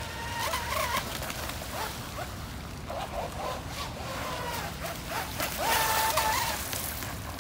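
Radio-controlled model boat running on a pond, a high whine from its motor shifting in pitch with the throttle. About six seconds in it speeds past close by, its spray hissing, the loudest moment.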